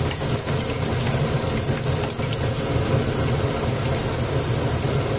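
Ginger-garlic-onion-chilli paste frying in hot mustard oil with cumin seeds in a kadhai, sizzling steadily with scattered small crackles, over a steady low rumble.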